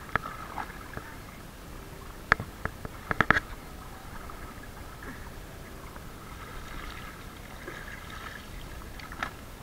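Pool leaf-skimmer net sweeping through the water with soft sloshing, with a few sharp knocks about two and three seconds in.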